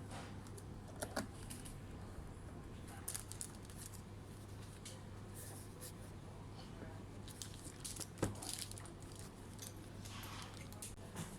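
Scattered light clicks and rustling from handling laptop parts by hand, with one sharp click about eight seconds in, over a steady low hum.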